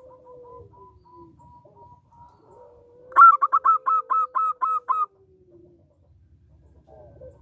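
Zebra dove (perkutut) calling: a run of about nine loud, quick, clipped notes comes between about three and five seconds in, over fainter, drawn-out cooing.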